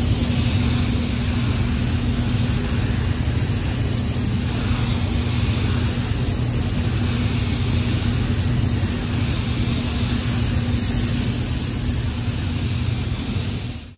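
Steady rush of air with a low hum from a paint spray booth in operation, as a compressed-air paint spray gun sprays paint onto a panel.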